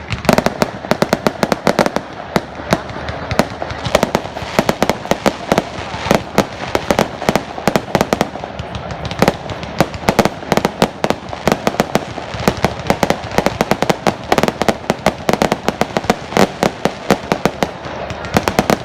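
A fireworks display going off without pause: a dense, irregular stream of sharp cracks and bangs, many each second, over a constant rumble of launches and bursts.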